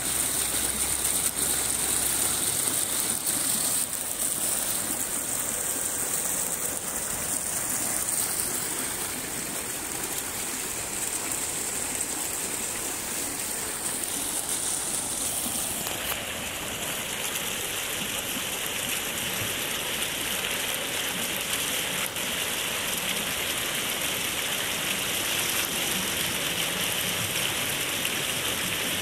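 Row of fountain jets shooting up and splashing down into a shallow water channel: a steady rush of falling, splashing water. Its tone changes about halfway through.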